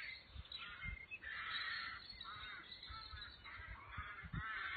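Several harsh cawing calls from crows, one after another, with a few soft low bumps in between.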